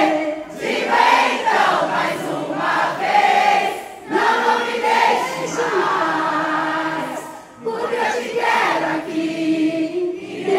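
Concert crowd singing a slow song along with a female lead singer, many voices together in sung phrases with short breaths between them, and little instrumental backing.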